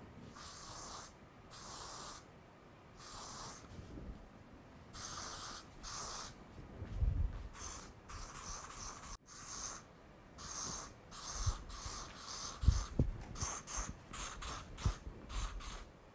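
Aerosol hairspray can spraying in a series of short hisses, each up to about a second long, coming in quicker, shorter bursts near the end. A few low thumps fall between the sprays, the loudest about two-thirds of the way through.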